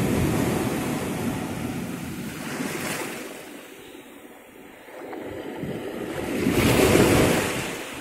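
Small ocean waves breaking and washing up a sandy beach at the water's edge: a wash of surf at the start fades to a lull around the middle, then a bigger wave breaks and surges in about seven seconds in, the loudest moment, before ebbing.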